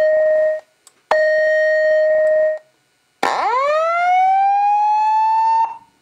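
Simplex 2902-9732 LifeAlarm speaker sounding the evacuation alert tones that come before the voice message. A steady tone ends about half a second in and a second steady tone of the same pitch lasts about a second and a half. After a short gap a whoop rises in pitch for about two and a half seconds and then cuts off.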